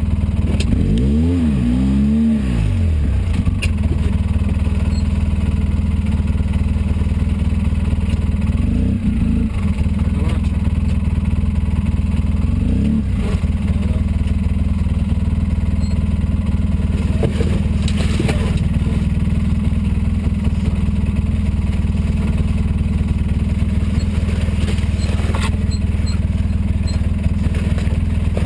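Polaris RZR 800 side-by-side's twin-cylinder engine running under load on a rough trail, heard from inside the cab. Its pitch rises and falls twice as it is revved about a second or two in, then it runs steadily, with a few sharp knocks and clatter later on.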